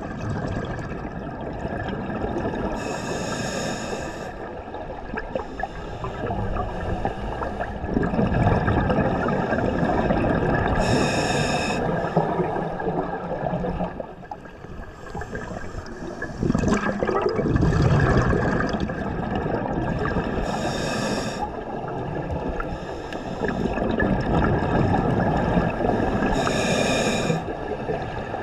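A scuba diver breathing through a regulator underwater: four short hissing inhales through the demand valve, each followed by several seconds of bubbling exhale.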